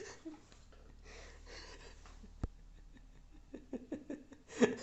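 Quiet handling of computer cooler parts: one sharp click about halfway, then a run of light clicks and taps, and a short louder rustle near the end.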